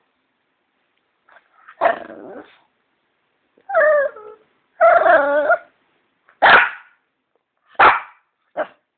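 A shih tzu barking: a sharp bark about two seconds in, two longer wavering calls in the middle, then two more sharp barks and a short one near the end.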